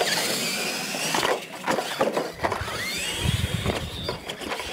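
Electric radio-controlled monster trucks racing on packed dirt, their motors whining and rising and falling in pitch as the throttle changes, with knocks and clatter from the trucks. A low rumble joins about three seconds in.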